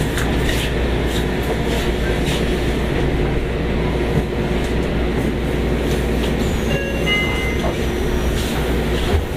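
Interior running noise of a Yokohama Municipal Subway 3000S-series train: a steady rumble of wheels on track, with a few brief high squeals a little past the middle.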